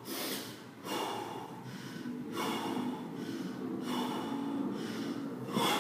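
Heavy, forceful breathing of a man snatching a 28 kg kettlebell: a hard breath every second and a half or so, winded late in a six-minute set.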